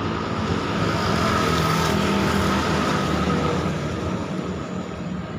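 A motor engine running as it passes, a steady hum with a broad rushing noise that fades away over the last couple of seconds.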